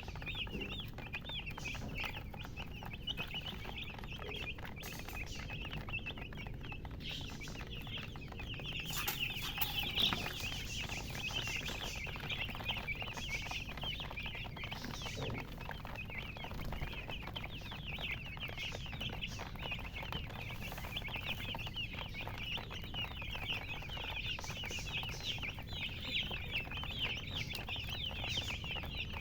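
Domestic chicks peeping nonstop, a dense chorus of many short, high chirps overlapping one another, over a steady low rumble.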